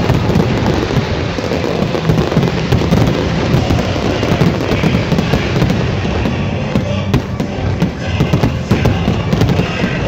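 Dense fireworks barrage: a continuous rapid crackle of many shells bursting at once, with frequent bangs throughout, and music underneath.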